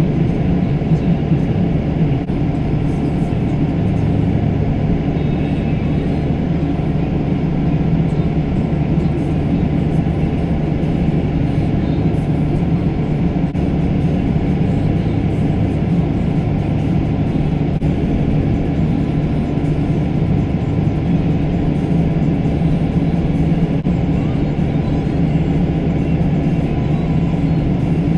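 Tractor engine running steadily, a continuous low drone with no change in pitch.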